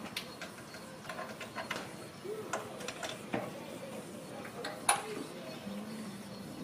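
Wheels of a miniature ride-on train clicking irregularly over the rail joints as it rolls along the track, with one louder click about five seconds in.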